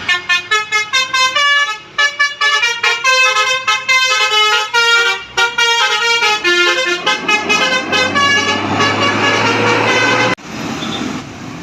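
Indonesian bus telolet horn, a multi-trumpet musical air horn, playing a fast tune of short stepping notes, with engine noise swelling under it near the end before the horn stops abruptly about ten seconds in.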